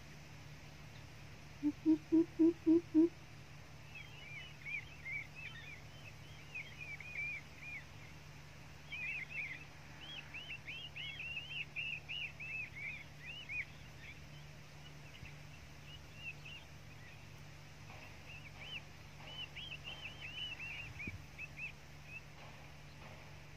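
Coucal call: a quick run of six deep, even hoots about two seconds in. Then a small bird chirps over and over in short high notes for most of the rest, over a steady low hum.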